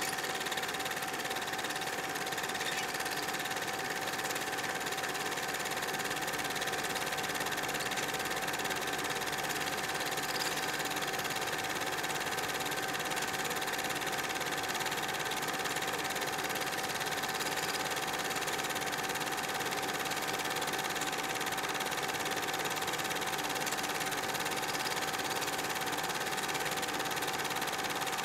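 A steady, machine-like hum with a constant high whine over an even hiss, unchanging throughout.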